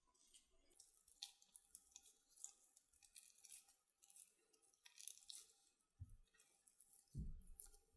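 Faint scattered clicks and crackles of food being handled during cooking, with two dull low thumps about six and seven seconds in.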